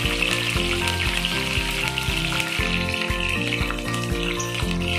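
Slit green chillies and seeds sizzling steadily as they fry in hot oil in a wok, with background music carrying a stepping bass line over the hiss.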